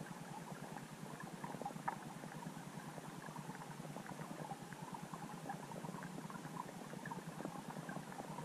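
Underwater sound picked up by a submerged camera: a steady muffled hiss with many small irregular clicks and crackles, and one louder click about two seconds in.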